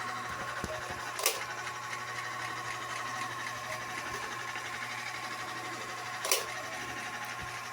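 Marx O gauge Commodore Vanderbilt toy locomotive running on track: a steady whir of its small motor and gears. Two sharp clicks stand out, about a second in and again about six seconds in.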